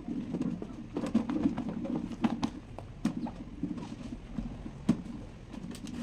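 A cloth rubbing and wiping over the plastic motor housing of a Lasko pedestal fan, with uneven scrubbing and several sharp knocks and clicks as the hands handle the housing.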